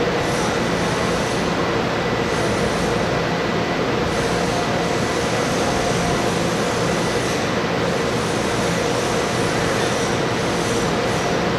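TEMU2000 Puyuma tilting electric train standing at the platform, its onboard equipment running with a steady hum and a faint high whine that comes and goes.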